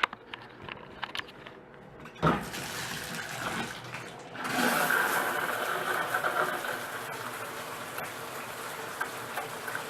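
Shower being turned on. A knock about two seconds in, then water starts running and builds to a full, steady rushing spray about four and a half seconds in.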